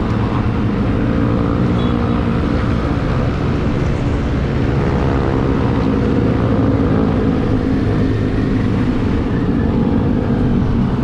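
Motorcycle engine running steadily while riding, its pitch drifting slightly up and down with speed.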